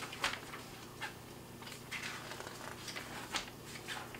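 Paper rustling: instruction sheets being handled and leafed through, with soft crinkles a few times each second.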